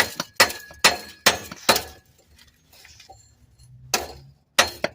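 Hammer striking metal: a quick series of sharp, ringing blows, about six in the first two seconds, a pause, then three more near the end.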